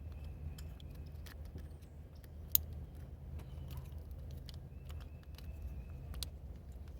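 Light metallic clicks and clinks of hand tools being handled during engine work, one sharper click about two and a half seconds in, over a low steady hum.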